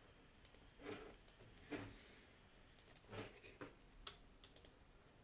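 Faint, scattered clicks of a computer mouse and keyboard over near-silent room tone.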